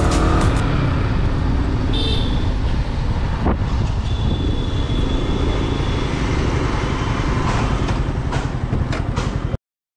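A Yamaha R15's single-cylinder engine runs as the motorcycle rolls and slows through town traffic, with steady wind and road noise on the camera microphone. It cuts off suddenly near the end.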